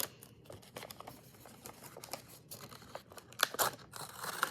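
Packaging being opened by hand: quiet rustling and crinkling with small clicks, then a few louder sharp crinkles or tears about three and a half seconds in.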